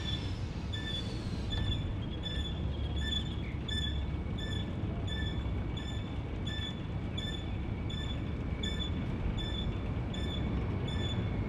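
Jet airliner engines rumbling steadily with a faint high whine.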